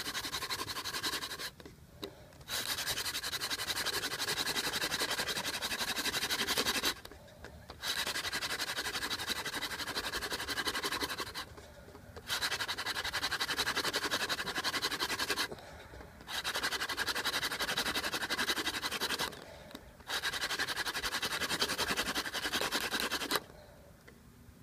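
A yucca hand-drill spindle spinning in a box elder hearth board makes a steady dry wooden rubbing. It breaks off in short pauses about every four seconds as the hands run back up the spindle. The drilling stops near the end as the char dust begins to smoke toward an ember.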